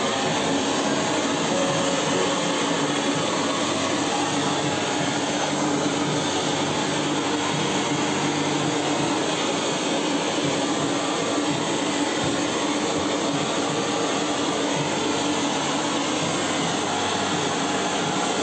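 Gas blowtorch burning with a steady, even rushing hiss as its flame singes plucked poultry.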